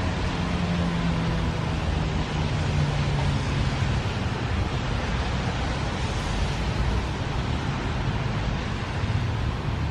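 Federal Signal 2001-SRNB outdoor warning siren winding down at the end of its 1-minute alert signal: its low tone slides slowly down in pitch and fades out over the first few seconds. A steady rushing of wind on the microphone is left.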